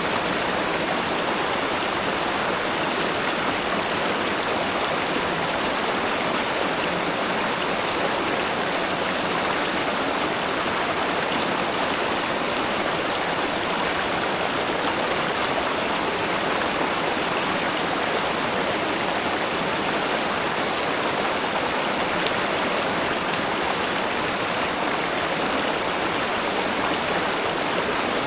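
A river or stream flowing steadily over rocks, a constant even rush of water.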